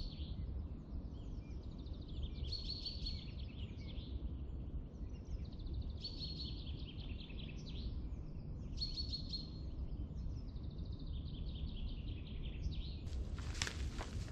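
A songbird singing short repeated phrases every few seconds over a low steady rumble. Near the end, footsteps crunching through dry leaf litter begin.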